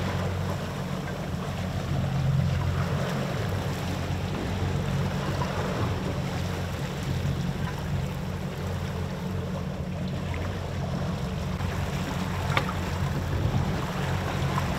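Suzuki 300 outboard motor running steadily at trolling speed, with wind on the microphone and water rushing past the hull. One sharp click near the end.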